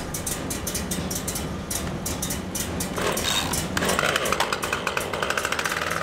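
Chainsaw idling as it is carried, with a fast, even putter.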